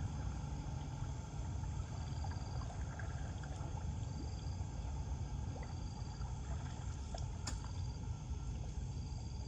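Floodwater running into a street drain, a steady low rush with some gurgling, with short faint high chirps every second or two and a single sharp click about seven and a half seconds in.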